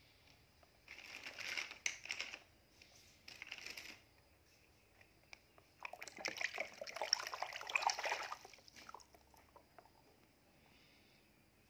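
Water splashing and sloshing in a plastic basin as plastic toy sea animals are moved about in it by hand, in three bursts: two short ones in the first four seconds and a longer one from about six seconds in.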